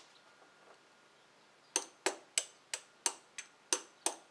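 Adjustable wrench tapping on the oil filler cap of a Honda Civic valve cover to free a stuck cap: sharp metallic taps about three times a second, starting about a second and a half in.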